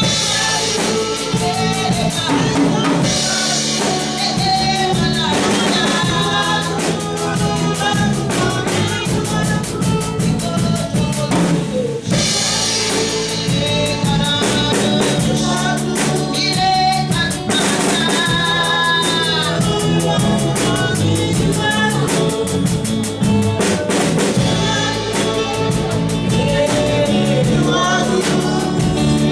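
Gospel worship song: a drum kit keeping a steady beat under voices singing the melody.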